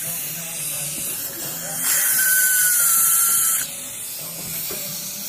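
Dental handpiece running for about two seconds in the middle, a high whine that drifts slightly lower as it runs, over the steady hiss of the suction tip.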